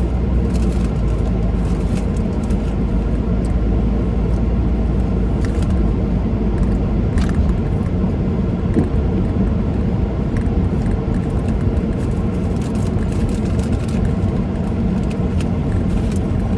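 Steady road and engine rumble heard from inside a moving car's cabin, with scattered light clicks and rustles.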